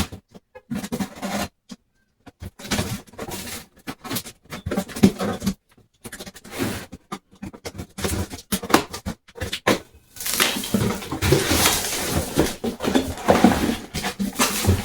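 A boxed two-burner propane stove being unpacked by hand: cardboard and packing material rustling, scraping and knocking in irregular bursts. The handling becomes denser and continuous about ten seconds in.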